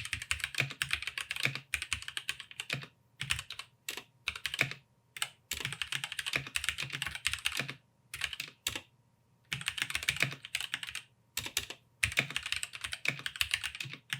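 Typing on a Womier K66 mechanical keyboard with Gateron red switches: fast runs of keystroke clicks broken by several short pauses.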